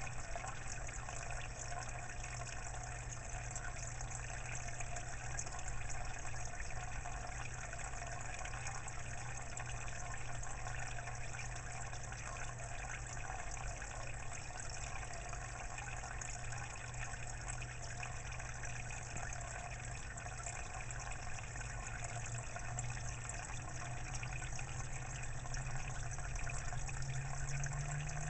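Aquarium water trickling and splashing steadily, over the steady low hum of a small water pump.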